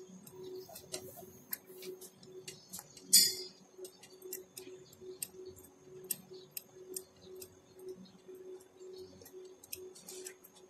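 Hand tools clicking and tapping irregularly on metal parts as the pallet mover's pump motor is put back together, with one loud metallic clink about three seconds in. A faint low hum pulses evenly a few times a second underneath.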